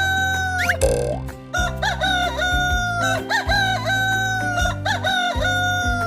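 Rooster crowing cock-a-doodle-doo several times in a row, each crow ending in a long held note, over light background music.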